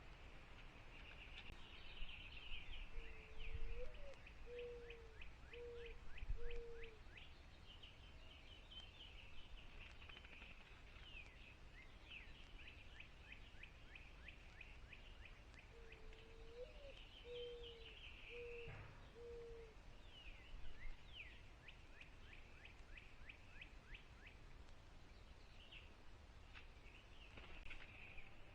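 Outdoor birdsong: high chirping and trilling of small birds runs throughout, and twice a low cooing phrase sounds, one rising note followed by three short notes.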